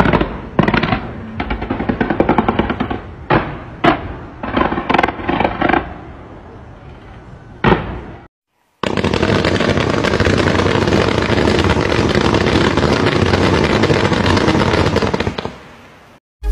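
Fireworks going off in quick bangs and crackling bursts. After a brief dropout about 8 s in, a loud, steady wash of noise follows and fades out near the end.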